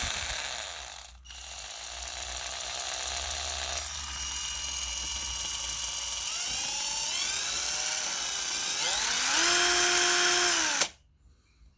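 Deko cordless drill-driver's motor running free, its whine dipping and climbing in pitch several times as the trigger varies the speed. Near the end it cuts off suddenly, the electric motor brake stopping the chuck.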